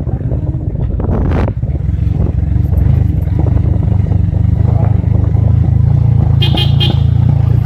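Motorcycle engine running as it rides, a steady low rumble that builds over the first couple of seconds as it picks up speed. A sharp knock about a second and a half in, and a brief high rattle near the end.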